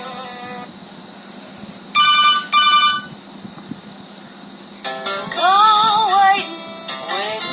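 Nokia 3120 classic mobile phone playing its ringtones one after another. A string-like tune ends in the first half-second. About two seconds in comes a short ring tone sounded twice in quick succession. About five seconds in a new ringtone starts, with a gliding, voice-like melody.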